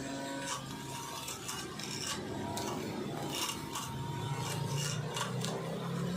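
Homemade lawn mower built from scrap parts running: its motor hums steadily while the spinning blade rasps and scrapes through grass in irregular strokes.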